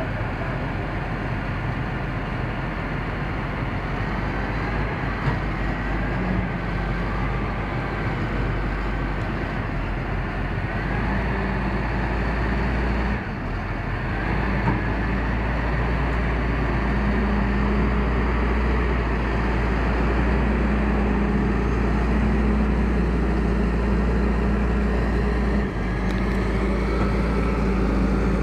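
Large farm tractor's diesel engine running steadily under load while pulling a loaded dump trailer through deep mud. The engine note grows stronger about halfway through.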